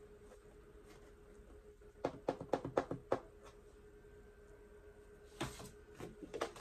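Sheets of 12x12 paper and chipboard being handled and set down: a quick run of about six light knocks about two seconds in, then a brief swish of a sheet sliding and a couple more knocks near the end.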